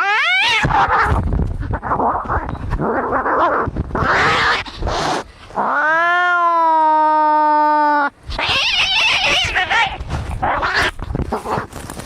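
Cats fighting, caterwauling: a rising yowl at the start, then harsh noisy screeching with scuffling, a long steady yowl about six seconds in that lasts some two seconds, then more harsh screeching.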